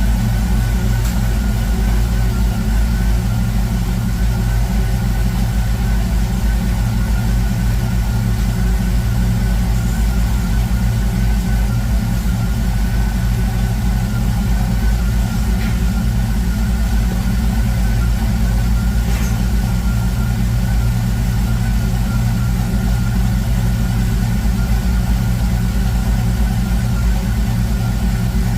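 A car engine idling steadily, with no revving.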